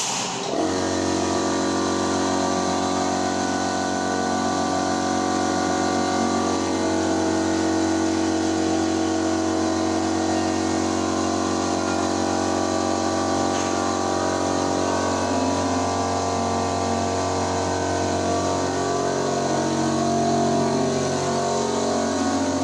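A machine running with a steady hum at an even pitch, its lowest notes shifting slightly a few seconds before the end.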